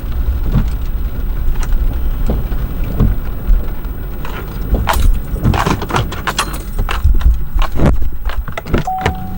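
Rain falling, with wind rumbling on the microphone and a quick run of sharp taps and knocks in the second half.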